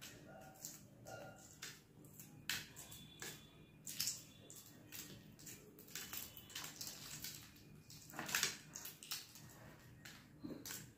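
Shells of hard-boiled eggs being cracked and picked off by fingers: faint, irregular small crackles and clicks, with louder ones about four seconds in and again about eight seconds in.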